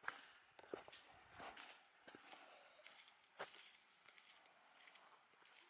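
Footsteps crunching on the forest floor, several irregular steps in the first few seconds and then fewer, over a steady high-pitched insect drone.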